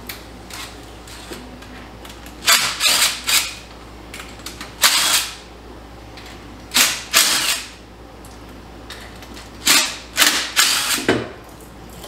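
Handheld cordless power tool run in four short spells of bursts, backing out the bolts that hold an adapter on a Turbo 350 transmission.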